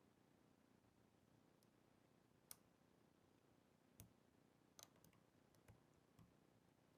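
Near silence with about six faint, sharp clicks spread over the second half: a half-diamond pick and tension wrench single-pin picking the spool-pinned ABUS padlock, setting pins one at a time.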